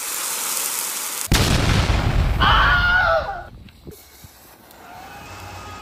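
High hiss of a lit firework fuse, then a small fountain firework igniting about a second in with a sudden loud rushing blast. A shrill wavering screech rides on top for about a second before the sound settles to a quieter hiss.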